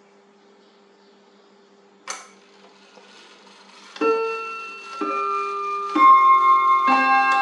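Three-train Jolema pendulum wall clock starting its chime after its minute hand is advanced. A single sharp click about two seconds in, then hammers strike four ringing chime notes roughly a second apart, each note sustaining under the next.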